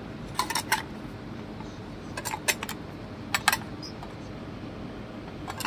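Light clicks and taps in a few small groups as an old Eastman Kodak box camera is handled and turned over in the hands.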